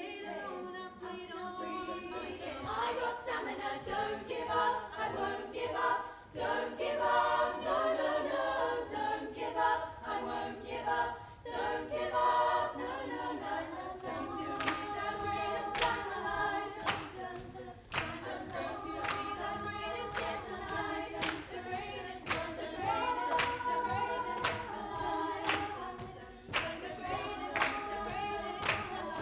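All-female youth a cappella group singing in close harmony, several voice parts at once with no instruments. About halfway through, a steady beat of sharp percussive hits, roughly two a second, comes in under the voices.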